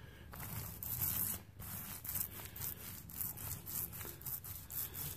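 Small paint roller with a 3/8-inch nap rolling wet paint onto a sanded drywall spot, a rubbing swish with repeated back-and-forth strokes.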